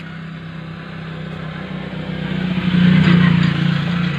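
A motor vehicle's engine humming steadily, growing louder to a peak about three seconds in and then easing off, as a vehicle going by.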